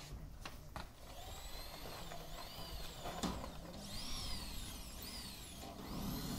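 Electric drill driving screws that fix cement fibre board to the steel frame, its motor whine rising and falling several times, with a few clicks and a sharp knock partway through.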